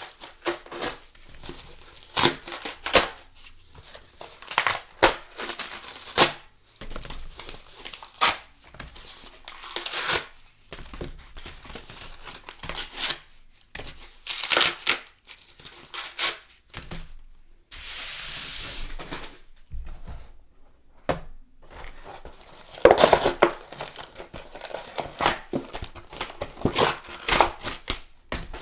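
Thick cardboard being torn in a series of separate rips, some short and one long, even tear. About two-thirds of the way through, after a brief pause, a cardboard tissue box is torn, with denser ripping and crinkling.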